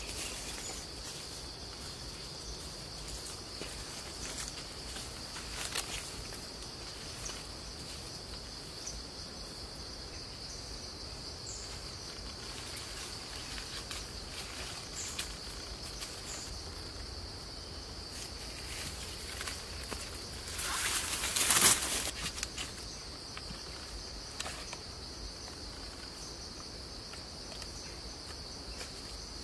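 Steady high-pitched drone of insects in the surrounding vegetation, with scattered light clicks and rustles and one louder burst of rustling about three-quarters of the way through.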